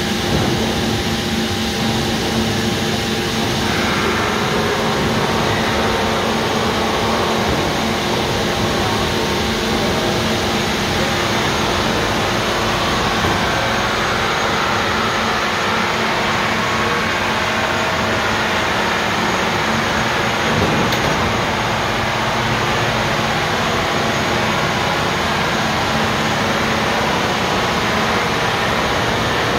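Hot tube rolling mill machinery running: a loud, steady industrial din with a constant low hum, turning brighter and hissier about four seconds in.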